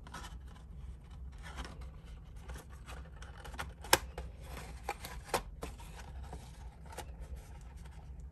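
Hands handling and pressing glued cardstock pieces, paper rubbing and scraping against paper, with a few short sharp taps, the loudest about four seconds in.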